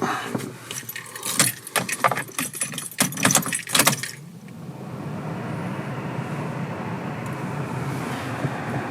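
Keys jangling and clicking for about four seconds, then a steady low hum.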